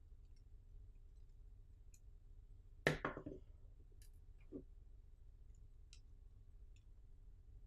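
Faint clicks of a small screwdriver and tiny screws while the main board mounting screws are taken out of a Yi 4K action camera, with one sharper clatter about three seconds in and a softer tap a second and a half later.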